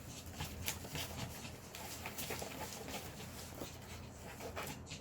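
Scattered light plastic clicks and rattles as a keycap puller and keycaps are handled, irregular and a few a second.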